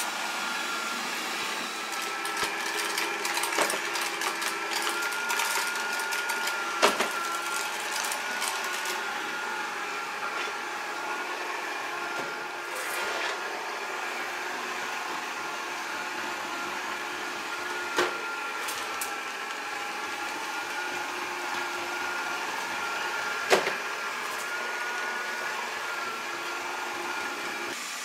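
Proscenic 820S robot vacuum cleaning a hardwood floor: a steady motor and suction hum with a thin high whine held over it. A few sharp knocks break in along the way.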